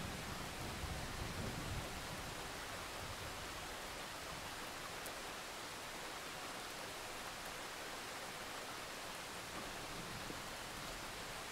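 Steady hiss of heavy rain from a thunderstorm recording, with a low rumble of thunder dying away in the first two seconds.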